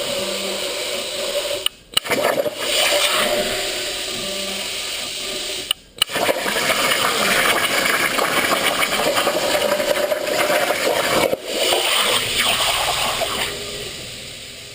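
CNC plasma cutter cutting 11-gauge hot-rolled steel: a loud, steady hiss of the cutting arc and air, breaking off briefly three times before it dies away near the end.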